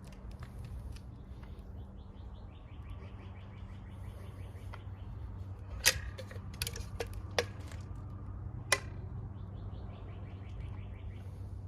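A bird trilling in the background, rapid repeated notes twice, once near the start and again near the end. Four sharp clicks come around the middle over a steady low hum.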